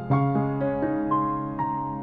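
Background music: a slow, gentle keyboard melody, single notes struck one after another over a held chord.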